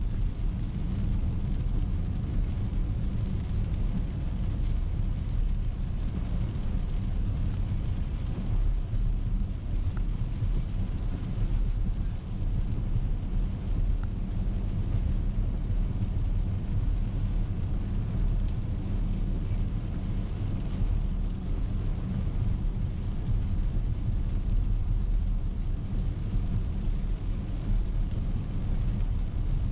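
Steady low rumble of a car driving on a wet road, tyre and engine noise heard from inside the cabin.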